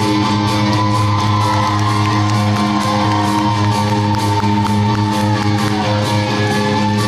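Live rock band playing: guitars, bass and drums with a steady cymbal beat, and a long held note that bends in pitch through the middle.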